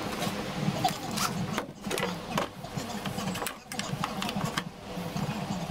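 Cordless drill motor running in short bursts, starting and stopping several times.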